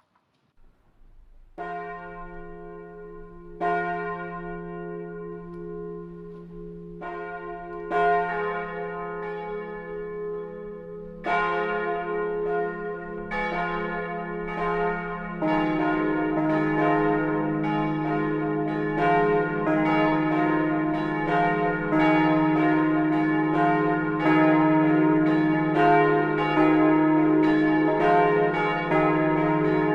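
Swinging church bells of the Gedächtniskirche in Speyer starting up as a partial peal. The first strikes come about a second and a half in, sparse at first and then faster, and a lower bell joins about halfway as the ringing grows louder.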